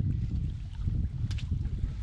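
Strong wind buffeting the microphone, a heavy uneven rumble, with one short click about one and a half seconds in.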